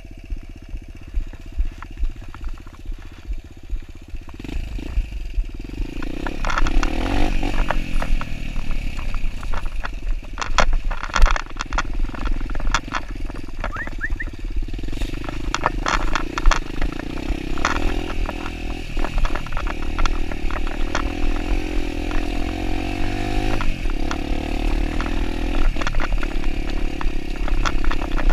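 Kawasaki dirt bike engine running slowly at first, then revving up and down from about five seconds in as the bike gets going. Sharp knocks and rattles from the bike over rough ground come through, most of them in the middle.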